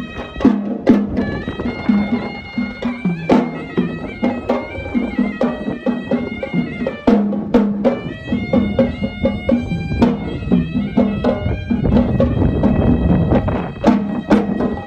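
Sri Lankan hevisi temple music: a horanewa (double-reed shawm) plays a nasal, wavering melody over irregular sharp drum strokes.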